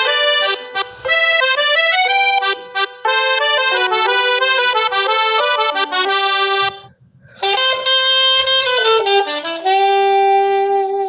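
A Huawei P8 Lite ringtone playing: a synthesized melody of held notes that breaks off about seven seconds in, starts again, and ends on one long note.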